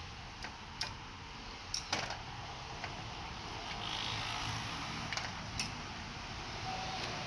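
Hand tools clicking and tapping against metal compressor clutch parts: about seven short, sharp clicks, bunched in the first two seconds and again a little past five seconds, over a steady low hum.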